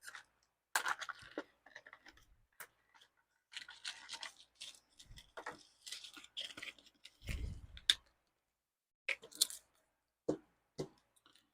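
Small plastic merchandise packaging being handled and unwrapped by hand: irregular crinkling and scratching with a few sharp clicks, and a dull thump about seven seconds in.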